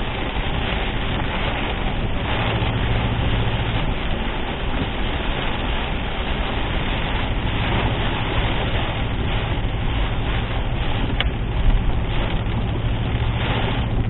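Torrential rain drumming steadily on a car, with a steady low hum beneath it and one sharp tick about eleven seconds in.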